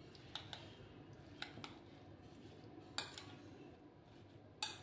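Metal cutlery stirring a grated potato and egg batter in a ceramic bowl: a few faint, scattered clinks of the metal against the bowl.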